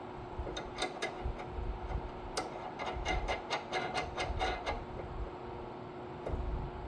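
A hand ratchet wrench clicking as a sway bar end link nut is tightened: a few scattered clicks, then an even run of about five clicks a second, with low knocks of handling the tool.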